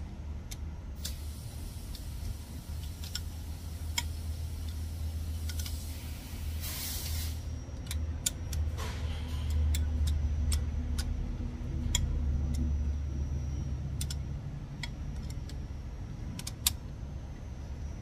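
Sharp metallic clicks and clinks, scattered irregularly, from a socket wrench working the head bolts of a cylinder head as they are loosened again during the torque-down procedure. A steady low hum runs underneath, with a brief hiss about seven seconds in.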